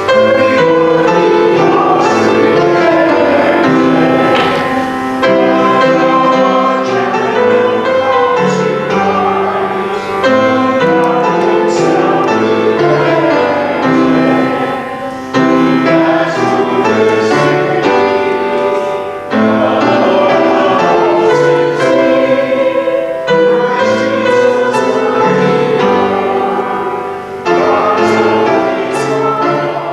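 Hymn sung by a choir or congregation with piano accompaniment, in phrases of about four seconds with short breaks between them.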